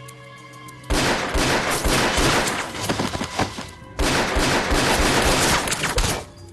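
Heavy, rapid gunfire: a dense fusillade of shots that breaks out about a second in, pauses for a moment near four seconds, then goes on for about two more seconds before stopping.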